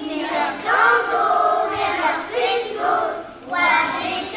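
Young children's choir singing a traditional Breton an dro song together, in Breton, with a short breath between phrases about three seconds in.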